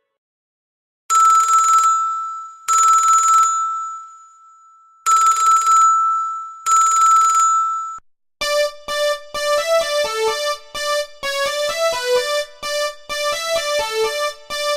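An electronic telephone ringtone gives two double rings, ring-ring, pause, ring-ring, each a trilling tone on one steady pitch. About eight seconds in, a different ringtone starts: a quick, bouncy melody of short piano-like notes.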